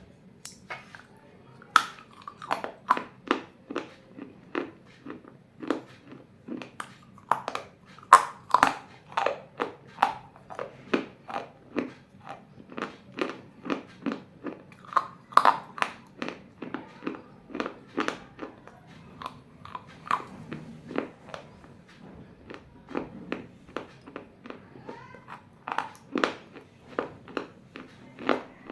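A person biting and chewing pieces of a clay bowl: an irregular run of sharp, dry crunches, about two a second.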